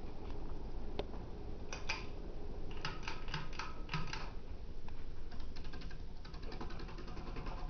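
A Harbor Breeze Springfield ceiling fan running steadily on high speed. Over it come runs of quick light clicks: a couple about two seconds in, a rapid series from about three to four seconds in, and fainter ones around six seconds in.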